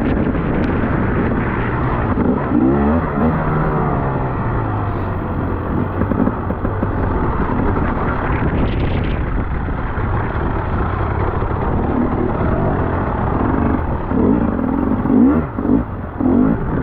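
Dirt bike engine revving up and down under heavy wind noise on the microphone, with the loudest revs about two to four seconds in and again near the end.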